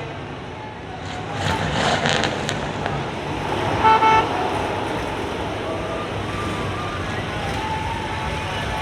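Road traffic, with a vehicle horn giving one short toot about four seconds in.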